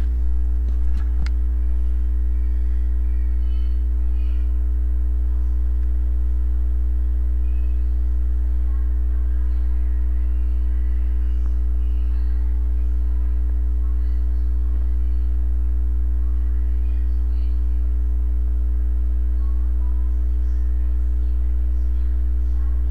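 Steady low electrical hum, loud and unchanging, with a fainter steady tone higher up.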